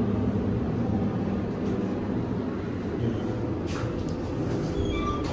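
Steady low mechanical rumble, with a few short high tones near the end.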